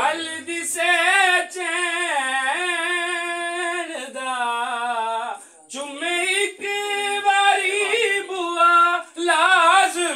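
A man's solo voice chanting a qasida, a devotional recitation sung without accompaniment. It holds long, high, drawn-out notes that waver and glide, pausing briefly about halfway through.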